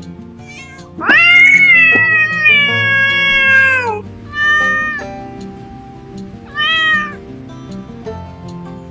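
A cat meowing three times over background music: one long meow of about three seconds that drops in pitch at the end, then two short meows.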